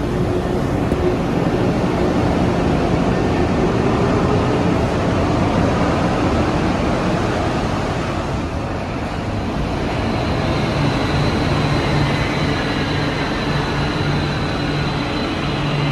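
Rubber-tyred Taipei Metro trains: a VAL 256 pulling away with a rising motor whine, then a Bombardier BT370 train running in from about ten seconds in, its motor pitches falling as it brakes over a high steady whine.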